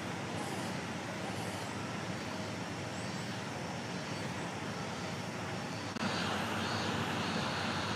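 Steady background noise, a low rumble with hiss and no clear single source, stepping louder about six seconds in.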